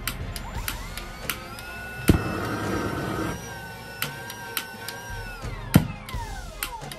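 Electric ducted fan of a homemade electric/butane jet engine spinning up with a rising whine, running at an unsteady, wavering speed set by hand on a potentiometer, then winding down near the end. A noisy rush swells about two seconds in, and sharp knocks come at about two and six seconds.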